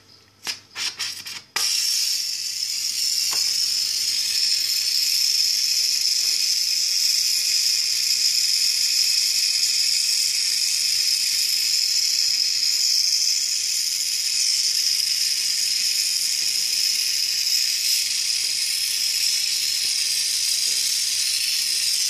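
A few clicks as a small oxy-fuel brazing torch is lit, then the torch flame's steady, loud hiss while it brazes a refrigerator's copper process tube shut with silver-alloy rod.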